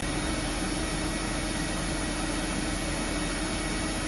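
Voumard 200 CNC internal grinder running: a steady hiss of machine noise with a steady low hum that comes in at the start.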